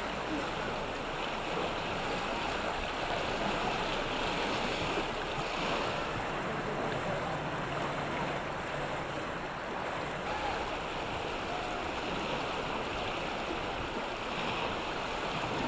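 Swollen river rapids rushing, a steady roar of churning whitewater.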